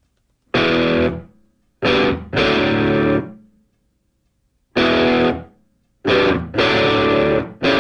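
Music: distorted electric guitar chords played in short, abrupt stabs with silent gaps between them, the stabs crowding closer together near the end.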